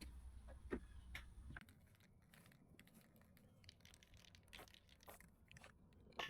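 Near silence with faint scattered clicks and rustles, and one sharper click near the end. A faint low hum stops about a second and a half in.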